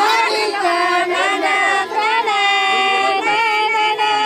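A group of high female voices singing a song together, with long held notes.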